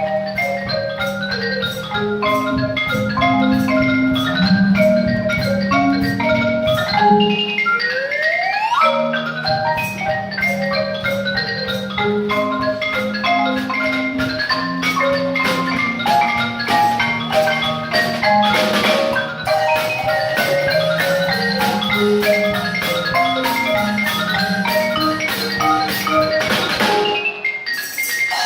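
Live ensemble music led by marimba and xylophone: quick, bright mallet notes over a sustained low bass line, with wood-block-like clicks and a quick rising glide about eight seconds in.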